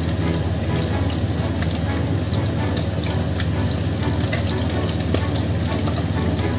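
Hot cooking oil crackling in a frying pan over a gas burner, with scattered sharp pops, over a steady low hum.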